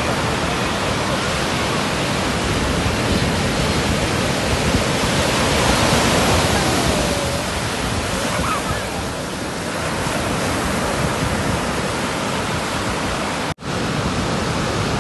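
Heavy surf on a rough sea, a steady roar of breaking waves washing up the sand, with faint distant voices. The sound cuts out for an instant near the end.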